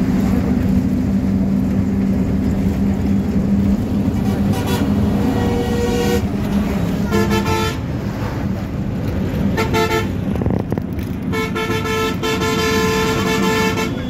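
Bus engine and road noise droning inside the cabin, with a vehicle horn honking over it: a toot about five seconds in, two short ones after, then a long blast held through the last few seconds.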